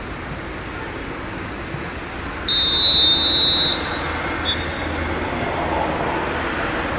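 Referee's whistle: one loud blast lasting just over a second, followed about a second later by a short pip, over a steady outdoor background of traffic-like noise.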